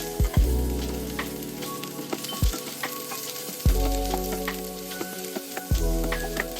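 Food frying in a pan: a steady sizzle with scattered pops and clicks of stirring.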